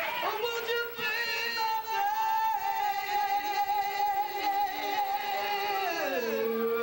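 Live band music with a singer holding one long high note that drops in pitch near the end.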